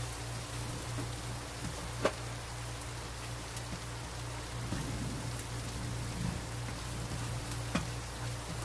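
Minced garlic sizzling in hot oil in a nonstick wok, a steady hiss, with the spatula clicking against the pan twice, sharply about two seconds in and again near the end. A steady low hum runs underneath.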